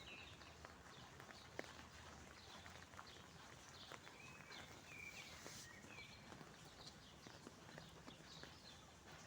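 Quiet outdoor ambience: faint birds chirping now and then, with scattered light clicks over a soft background hush.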